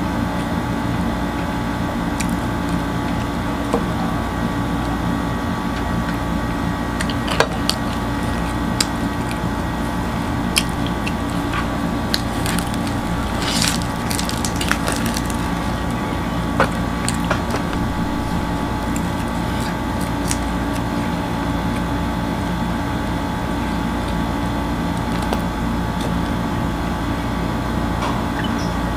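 Crisp flatbread crust being torn and chewed close to the microphone, with scattered crackles and clicks, densest about halfway through. A steady hum runs underneath.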